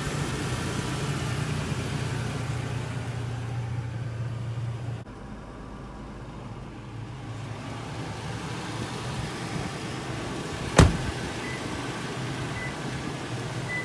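Toyota Tacoma pickup's engine idling with a steady low hum, which changes abruptly to a quieter, even hum about five seconds in. Near the end a single sharp click or knock is the loudest sound.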